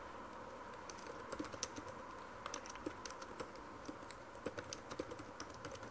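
Faint typing on a computer keyboard: irregular quick key clicks as a sentence is typed.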